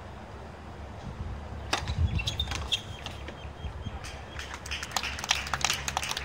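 Sharp strikes of a tennis ball off rackets and the hard court, then scattered clapping from a small crowd starting about four seconds in.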